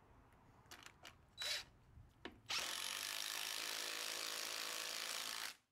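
Cordless impact driver with a socket driving a hex-head lag bolt into a pre-drilled 2x4. A few light clicks and one short burst come first, then about three seconds of steady driving that stops suddenly near the end.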